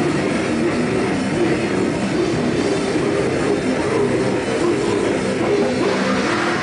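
Grindcore (goregrind) band playing live: electric guitars, bass and a drum kit in a dense, unbroken wall of sound.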